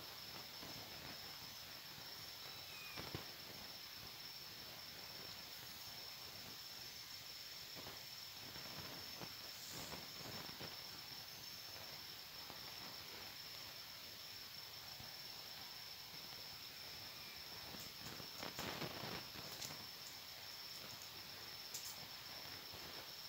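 Faint steady trill of crickets, with a few brief rustles.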